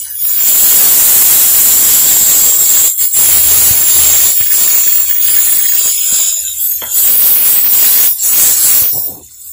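Chopped tomatoes, onion and garlic sizzling loudly in a hot cast-iron pan as liquid is poured in, sending up a steady hiss of steam. The hiss dips briefly a few times and cuts off near the end.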